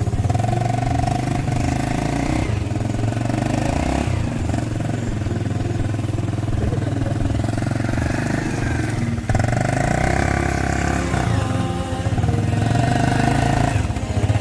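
Small motorcycle engine running under load on a rough off-road track, its revs rising and falling, with a brief break about nine seconds in.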